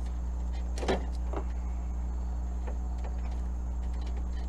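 Light clicks and knocks of wiring and plastic trim being handled, with one sharp knock about a second in, over a steady low hum.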